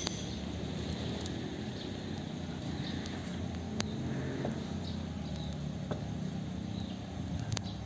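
A few sharp metal clinks as a heavy cast-iron truck differential housing is lowered and fitted onto its gear carrier, over a steady low mechanical hum.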